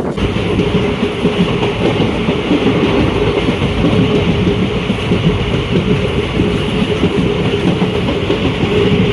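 Passenger express train running along the track: a loud, steady rumble and clatter of wheels on rails and carriage, with a steady humming tone through it.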